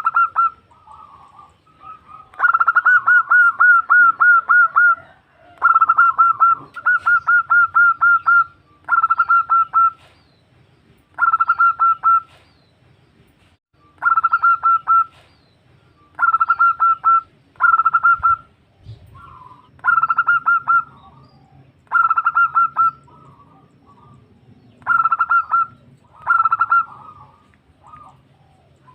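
Zebra dove (perkutut), given as a female calling to a male: bursts of rapid, evenly repeated cooing notes, most lasting about a second and coming roughly every two seconds. The first two bursts are longer.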